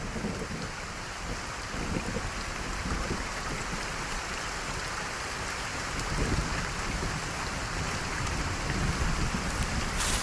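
Steady rain falling, with an uneven low rumble of wind on the microphone.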